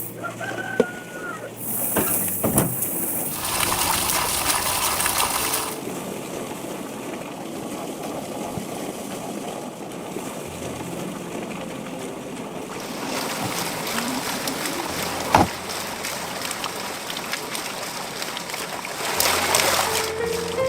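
Water splashing and trickling, its level changing abruptly a few times, with a few sharp knocks.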